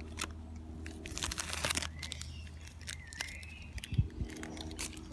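Crackling and crunching as a piece of Hershey's Gold peanuts-and-pretzels candy bar is handled and bitten into, with a loud thud about four seconds in. A bird chirps a few times in the middle.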